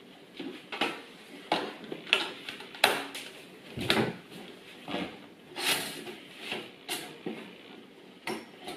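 A dozen or so sharp clicks and knocks, irregularly spaced, from a two-slot stainless steel toaster being handled: bread set in its slots, its plug pushed into a wall socket and its lever pressed down.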